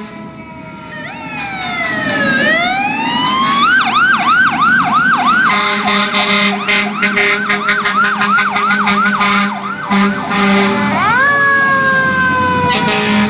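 Fire engine siren. It glides down and back up, then switches to a fast yelp of about three sweeps a second, and about eleven seconds in it rises into a held wail. A low steady horn tone sounds under the yelp for several seconds in the middle.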